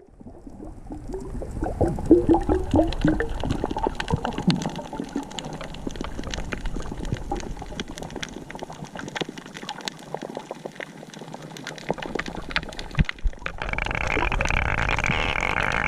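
Underwater sound on a submerged camera: bubbling gurgles for the first few seconds, over a steady crackle of many tiny clicks. About 13.5 seconds in, the camera breaks the surface and the muffled sound gives way to louder open-air noise.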